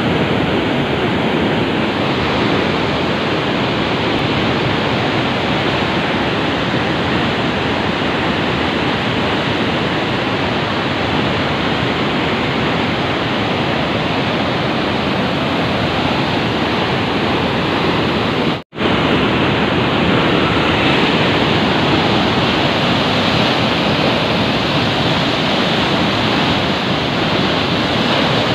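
Floodwater of the Chenab River rushing through the open gates of Head Marala barrage: a loud, steady roar of water. The sound cuts out for an instant about two-thirds of the way through, then returns unchanged.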